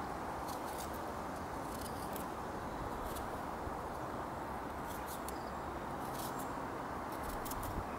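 Knife cutting and paring a cooking apple by hand, irregular small crisp snicks about once or twice a second, over a steady rush of wind.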